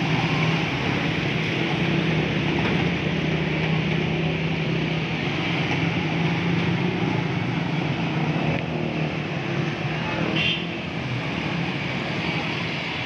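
Several motorcycle engines running steadily at low speed as the bikes ride through floodwater, with water washing and splashing around their wheels.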